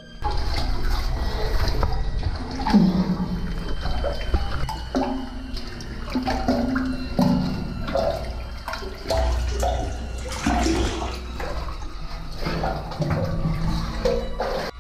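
Water sloshing and splashing as cavers wade through deep water in a flooded cave passage, with uneven gurgles and surges close to the microphone.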